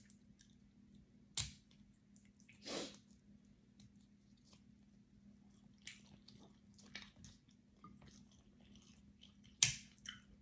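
Close-up chewing and the small clicks and cracks of cooked crab-leg shell being picked apart by hand, with two sharp snaps of shell, one about a second and a half in and one near the end. A short breathy noise comes nearly three seconds in.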